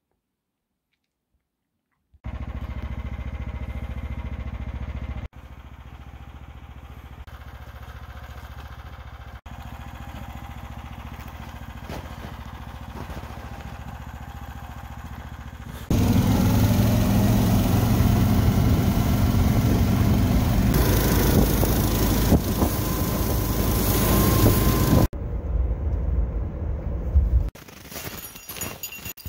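A small engine running, its pitch rising and then holding steady; this is the loudest stretch, set among quieter stretches of low rumbling noise that begin and end abruptly. Footsteps crunch in snow near the end.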